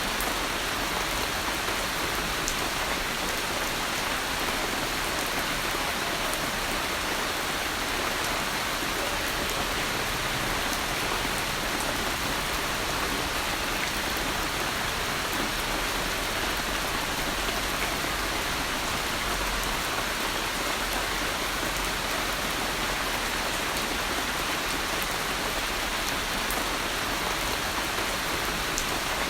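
Steady rain falling, a constant patter of drops hitting a surface, with no thunder.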